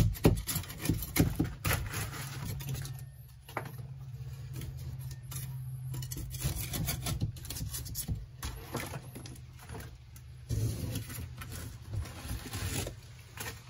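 Rotten, water-soaked plywood and wood strips being pulled and peeled apart by hand: irregular scraping, tearing and cracking of soft, damp wood.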